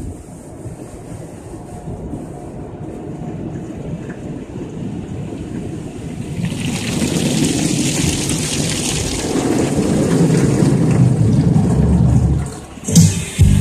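Automatic car wash heard from inside the car: a low rumble of water and machinery. About halfway through, a loud hiss of water spray hitting the windshield and body starts and keeps getting louder. Near the end it dips briefly and then comes back in sudden loud bursts.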